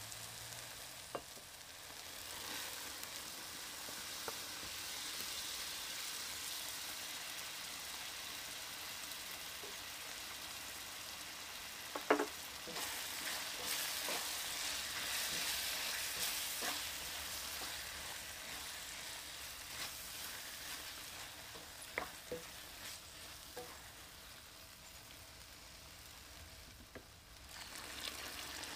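Tomato-and-onion sauce sizzling in a wok as a wooden spatula stirs it, then stirs in red lentils, with a few sharp knocks of the spatula on the pan, the loudest about halfway through. Near the end, hot water starts pouring into the pan.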